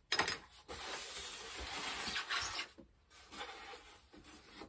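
Rustling and rubbing of styrofoam packaging as parts are pulled out of a foam shipping box. It starts sharply, runs loud for about two and a half seconds, then goes on more softly in short scrapes.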